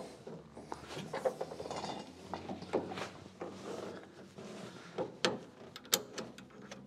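Hydraulic hose coupler being screwed onto a 10-ton hydraulic ram: scattered small metallic clicks and rattles, with two sharper clicks near the end.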